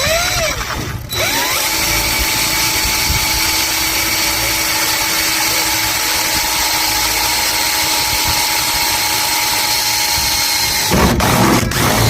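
Electric power drill running at a steady speed for about ten seconds after a brief rising whir, then stopping abruptly near the end.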